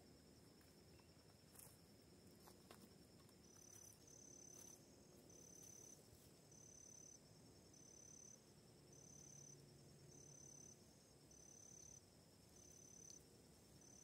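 Faint insects in the reeds: a steady high trill, joined about three and a half seconds in by a short high chirp repeating evenly, a little more than once a second.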